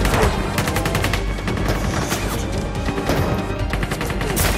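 Rapid automatic gunfire in runs of many shots a second, over a film score and a car engine, with one loud shot near the end.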